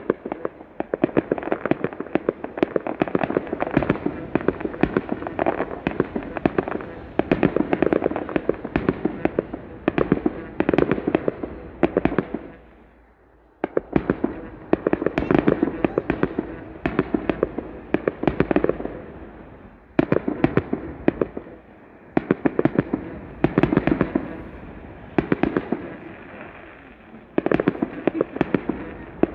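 Fireworks display: rapid volleys of bangs and crackling, dense and nearly continuous, with a brief lull a little under halfway through and shorter dips later.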